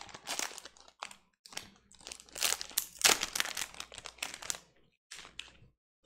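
Foil wrapper of a football trading card pack being torn open and crinkled by hand: irregular crackling and crinkling with a few short pauses.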